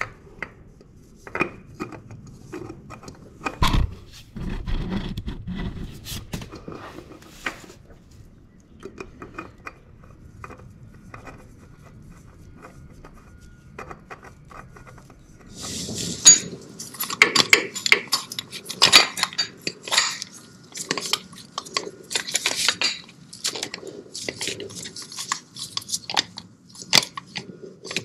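Metal tools and an oil filter being handled against a motorcycle engine's underside: scattered clinks and a dull thump early, then a busy run of metallic clinks and scrapes from about halfway on.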